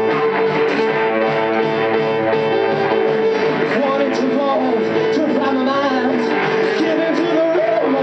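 Live pop band playing, with drums and keyboard over a steady beat; a singer's voice comes in on the microphone about halfway through.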